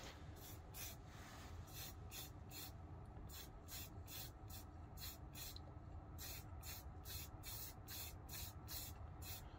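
Aerosol spray paint can hissing in many short, faint bursts, about two a second, as white paint is put on in quick dabs.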